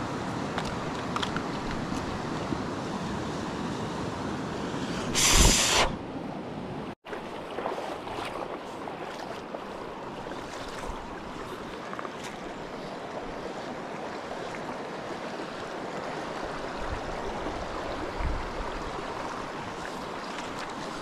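Shallow rocky stream running steadily over stones. About five seconds in there is a short, loud hiss lasting under a second, and about seven seconds in the sound drops out for an instant.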